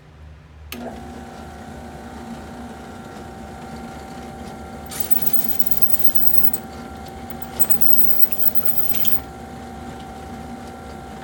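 Skil benchtop drill press switched on under a second in, its motor running with a steady hum. From about five seconds in, a hole saw cuts into a thin aluminum panel, adding a scratchy hiss and a few sharp ticks.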